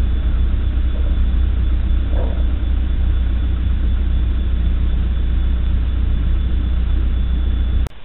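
Backhoe's diesel engine idling, a deep steady sound, cut off abruptly just before the end.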